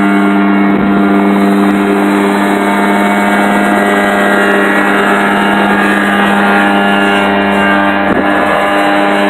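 Mosquito ultralight helicopter hovering low, its Rotax 503 two-stroke twin engine running loud and steady at high power with the rotor turning, lifting a 230-pound load on a hot day.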